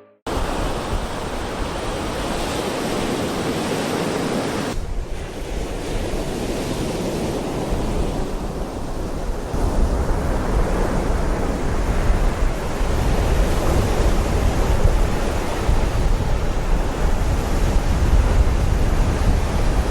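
Surf washing on a beach with wind rumbling on the microphone, the wind rumble heavier in the second half.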